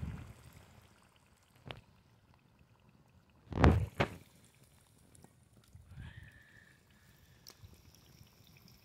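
Sprat frying in a shallow pool of oil on a flat metal plate over a wood fire, a faint sizzle and bubbling, broken by a few dull thumps, the loudest a double thump about three and a half seconds in. A faint steady whistle comes in about six seconds in.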